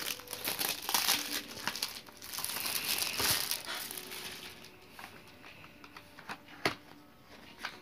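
Thin plastic shrink-wrap crinkling as it is cut and peeled off a cardboard chocolate box. The crinkling is louder in the first half, then gives way to quieter handling with a few light clicks, the sharpest near the end.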